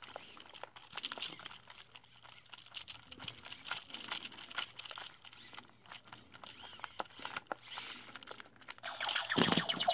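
Faint, irregular plastic clicking and ticking as a WowWee Robopet robot dog toy is handled and its legs are moved by hand. A louder voice-like sound starts just before the end.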